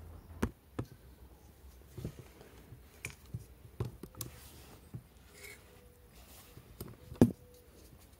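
Scattered light clicks and knocks of parts and tools being handled at a scooter engine on a workbench, with one sharper knock about seven seconds in. A faint steady hum comes in about four seconds in.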